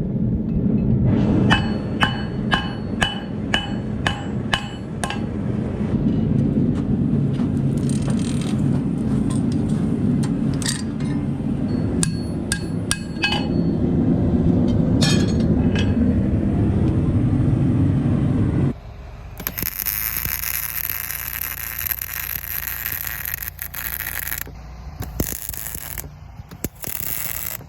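Blacksmith's hammer striking on an anvil in runs of ringing blows, about two a second, over a steady low rumble. In the last third the rumble drops away and a loud hiss starts and stops several times.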